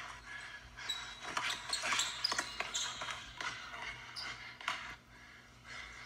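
Basketball being dribbled on a hardwood gym floor, a run of sharp bounces, with short high sneaker squeaks in between.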